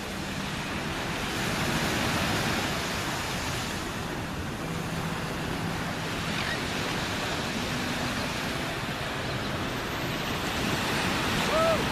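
Ocean surf washing onto the beach, a steady rushing wash that swells about two seconds in, with wind on the microphone.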